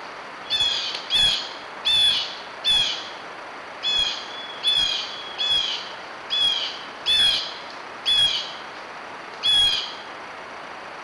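A bird calling over and over: eleven short, high calls, each slurring slightly downward, about one every three-quarters of a second. A steady faint hiss runs underneath.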